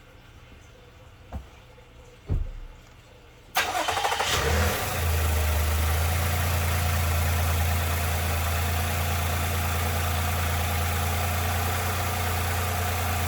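Two short thumps, then about three and a half seconds in the 2021 Toyota Highlander's V6 engine cranks and fires, surges briefly and settles into a steady idle. It is started freshly refilled with new oil after an oil change, run briefly before the oil level is checked.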